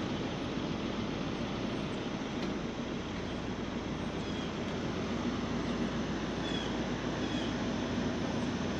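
The catamaran's two engines running in gear at low speed, a steady even hum under a wash of noise.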